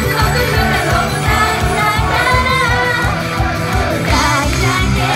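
Japanese idol pop performed live: female vocals sung into microphones over a loud backing track with a steady beat.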